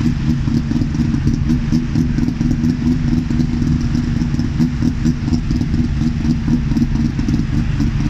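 Tuk-tuk's small engine idling steadily with an even, pulsing beat, heard from the passenger seat while the three-wheeler waits at a red light.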